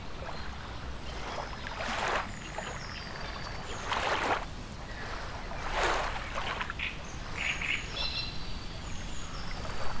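Geese feeding with their bills in shallow water among floating leaves: wet sloshing and splashing, three louder splashes about two seconds apart and smaller ones after. Faint chirps of small birds and a steady low rumble run underneath.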